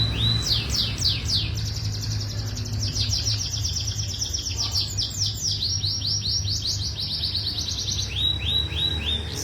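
Domestic canary singing a continuous run of rapid trills, each a fast string of identical notes that switches to a new note type every second or so: steep falling notes for most of the run, then short lower notes near the end. A steady low hum sits underneath.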